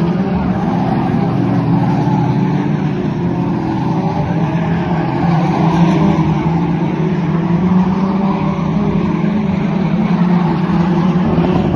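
F2 stock car engine running hard at racing speed, its pitch holding fairly steady with small rises and falls.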